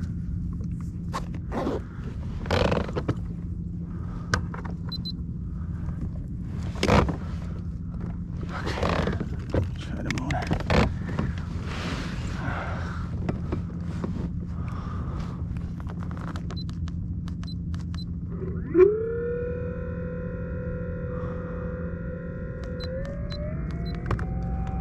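Knocks and rustles of gear being handled on the plastic kayak, then a click about nineteen seconds in and the Bixpy J-2 electric kayak motor whirs up: a whine that climbs quickly to a steady pitch and steps up higher near the end as the speed is raised.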